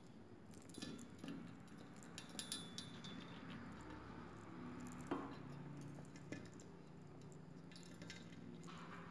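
A small pet squirrel clambering over and gnawing at metal bed-frame bars: faint, scattered scratchy clicks and taps, with one sharper knock about five seconds in.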